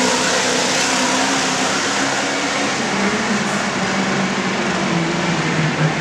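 Diesel pickup truck engine running flat out under load while pulling a weight-transfer sled, a loud steady drone; its note drops lower about halfway through.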